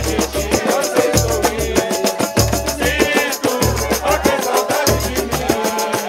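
Live samba played in a roda de samba: a deep hand drum (tan-tan) beats a low, even rhythm under the jingle of a pandeiro. A cavaquinho and an acoustic guitar strum chords, with voices singing.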